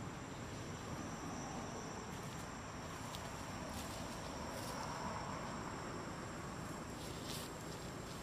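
Insects calling in a steady, high-pitched drone over a low background hiss, with a few faint clicks.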